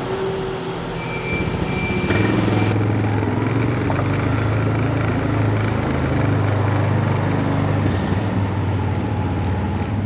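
Vehicle engine running steadily, growing louder about two seconds in, with a hiss of wind or air over it that drops away shortly after.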